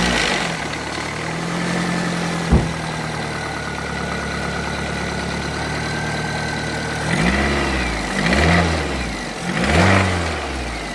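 Car engine just started after a connecting-rod bearing was replaced, idling with one sharp knock about two and a half seconds in, then blipped up and back down three times. The rod knock it was meant to cure is still there and getting worse.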